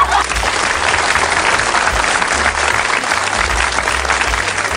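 Applause from a crowd, dense steady clapping.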